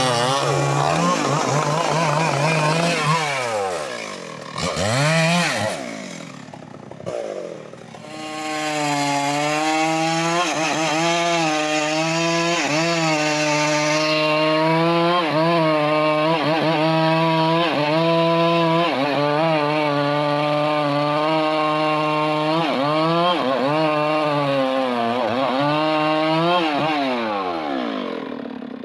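Two-stroke chainsaw bucking a large trembesi (rain tree) log. The engine drops off and revs back up a few times in the first several seconds, then runs at high revs under load in the cut with a short dip about every second, and winds down near the end.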